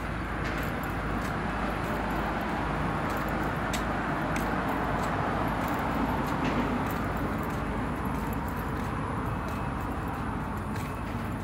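Roadside traffic: a passing car's tyre and engine noise swelling and fading around the middle, over a steady low rumble, with scattered light clicks.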